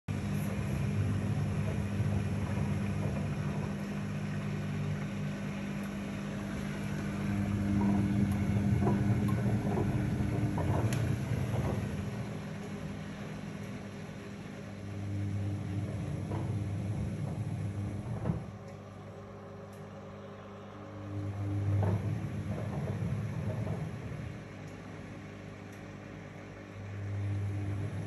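Privileg top-loading washing machine running, its motor humming in spells of a few seconds that swell and fall away with short lulls between, as the drum turns and stops. Sharp knocks and rattles come during the louder spells.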